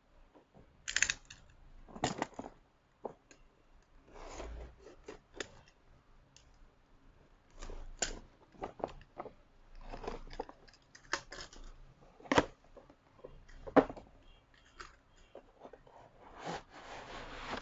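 Plastic shrink-wrap crinkling and tearing as it is peeled off a cardboard router box, then the box's cardboard flaps being opened. Short, scattered rustles with a few sharper clicks, fairly quiet.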